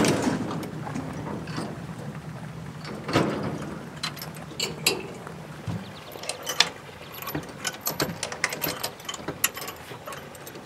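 Metallic clicks, clacks and knocks of a hand working the coupler between two scale freight cars, with a loud knock at the start and another about three seconds in. A low rumble stops suddenly about six seconds in, and a run of sharp clicks follows.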